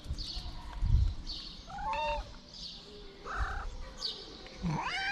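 A stray cat meowing twice: a short meow that rises and falls about two seconds in, and a longer rising meow near the end. A low thump about a second in is the loudest moment.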